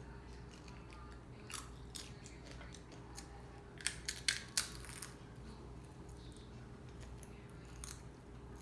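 Crunching as a chip is bitten and chewed: scattered sharp crunches, with a cluster of about five loud ones about four seconds in.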